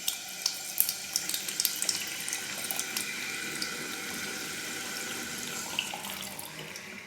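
Water running from a tap into a sink. Sharp splashes and spatters come in the first two seconds, then the flow settles to a steady stream and tapers off near the end.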